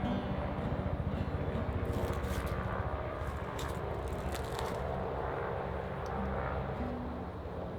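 A low, steady engine-like rumble, with a few light clicks about two and four seconds in.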